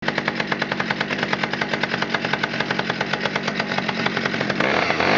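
Two-stroke chainsaw, the 3.14 cubic inch 1978 Pioneer P26, idling with an even, rapid popping, then revving up near the end.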